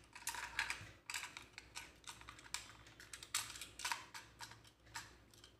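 Irregular plastic clicks and light knocks as a plastic AA battery holder is pushed and fitted into the battery compartment of a toy RC monster truck's chassis.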